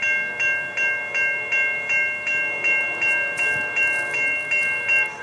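Railroad grade crossing bell ringing rapidly, nearly three strokes a second, as the crossing gates lower to warn of an approaching train; the ringing cuts off near the end.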